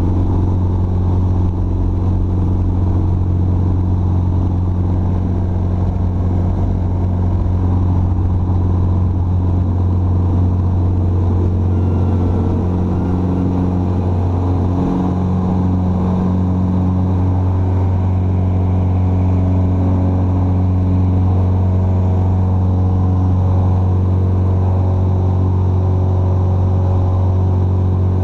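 Jabiru UL-450's four-cylinder air-cooled Jabiru engine and propeller at full takeoff power, heard from inside the cockpit as a loud, steady drone through the ground roll and climb-out. The tone shifts slightly about halfway through.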